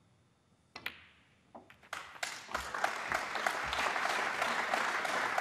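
Snooker balls: a sharp click of cue and cue ball on the black about a second in, a few softer knocks as the black is potted, then audience applause that builds from about two seconds in.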